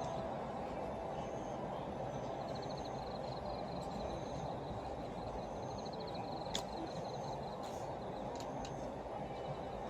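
Steady outdoor background noise, with short bouts of a rapid, high pulsing chirp repeating every couple of seconds and a few faint ticks, one sharper click about six and a half seconds in.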